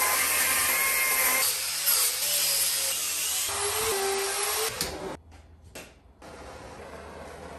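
Power carving tools on a wood block: a chainsaw and then a handheld rotary grinder, a steady motor whine over cutting noise. The sound drops out briefly about five seconds in and comes back much quieter.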